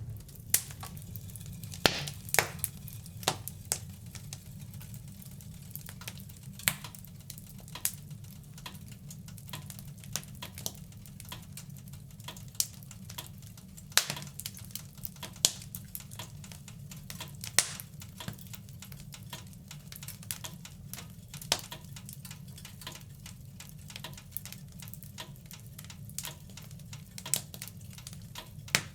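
Wood fire in a fireplace crackling: irregular sharp pops and snaps, a few much louder than the rest, over a steady low rumble of the burning fire.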